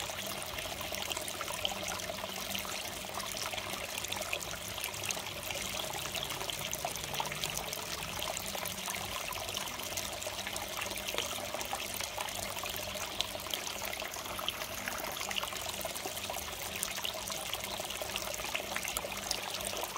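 Water from a garden pond's water feature pouring and trickling into a fish pond: a steady splashing made up of many small splashes.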